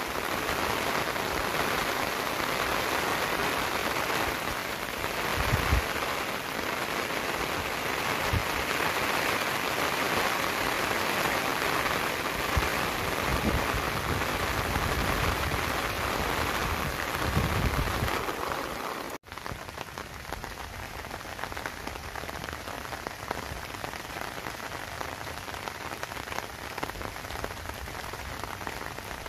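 Steady rain falling, a dense even hiss, with a few short low thumps. About two-thirds of the way through it cuts out for an instant and comes back a little quieter.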